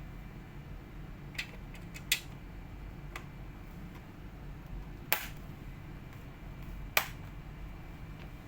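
Five sharp clicks and taps from small hard parts of a laptop being handled during a RAM upgrade, spaced irregularly over a steady low hum.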